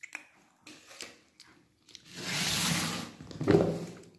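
Plastic insulated casserole being handled and its lid pulled off: a few light clicks, then a rubbing hiss lasting about a second, then a louder clunk about three and a half seconds in as the lid comes away.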